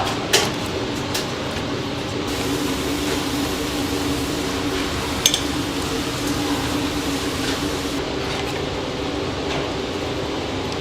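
Steady mechanical hum of kitchen machinery, with two sharp clinks: one just after the start and one about halfway through.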